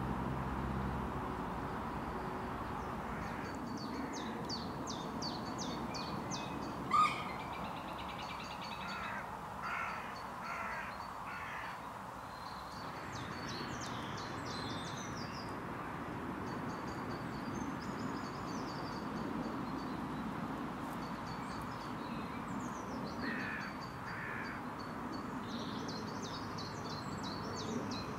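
Wild birds calling. Small birds chirp in high, quick notes through most of it, and a lower call comes in short repeated runs twice. One short sharp call about seven seconds in is the loudest sound. All of it sits over a steady background hiss.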